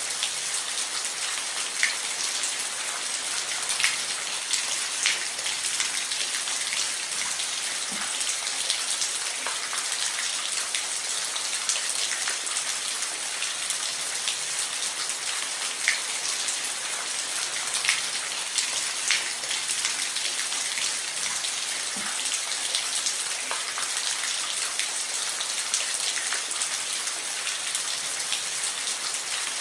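Steady rain falling on a roof: an even hiss of rainfall with individual heavier drops ticking sharply here and there.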